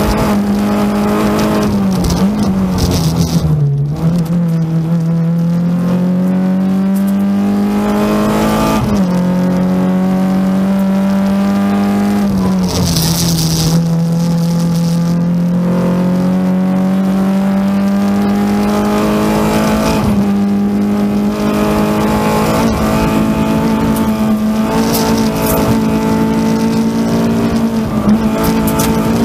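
Renault Clio 16V rally car's 16-valve four-cylinder engine at speed, heard from inside the cabin. Its pitch climbs steadily under full throttle and drops sharply several times as the driver lifts, brakes or changes gear. A short hiss comes twice, about 3 and 13 seconds in.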